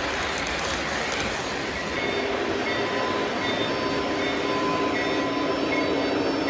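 Lionel model train rolling along its metal track: a steady rumble and rattle from the wheels on the rails, growing slightly louder about two seconds in.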